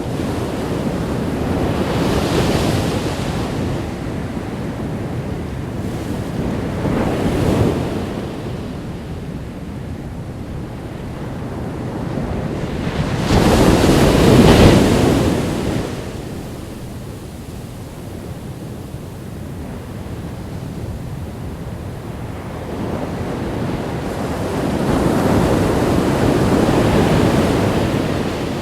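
Ocean surf breaking on a beach, rising and falling in slow swells of rushing water. The loudest wave breaks about halfway through.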